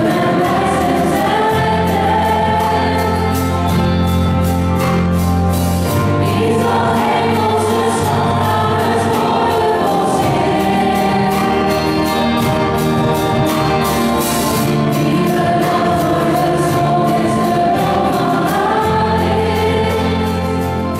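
Mixed vocal group singing a Christian song in harmony through microphones, over long held bass notes and a steady percussive beat.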